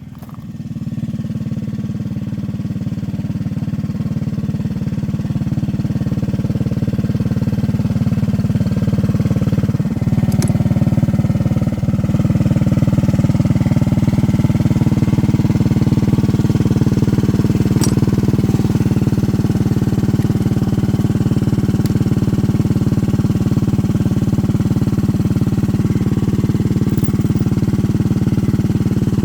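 An engine running steadily, its level building over the first couple of seconds and then holding.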